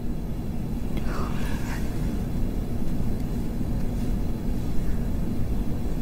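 A steady low rumble that grows slightly louder, with a short soft voice-like sound about a second in.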